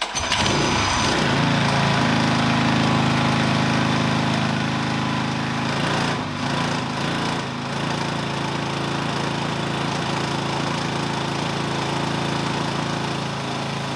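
Built Predator 224cc single-cylinder engine fires up and runs steadily on an engine dyno. Its pitch wavers briefly about six seconds in, then it settles again.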